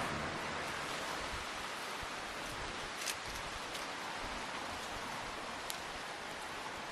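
Wood fire burning in a fire pit, with a steady rushing hiss and two sharp crackles, one about three seconds in and another a few seconds later.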